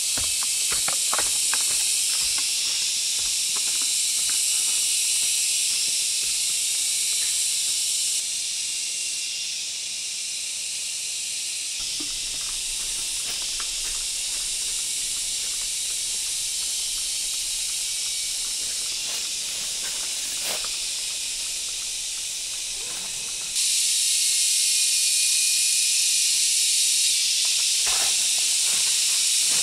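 A loud, steady, high-pitched chorus of forest insects, with faint footsteps crunching on leaf litter and undergrowth underneath. The insect sound drops in level about eight seconds in and rises again near the end.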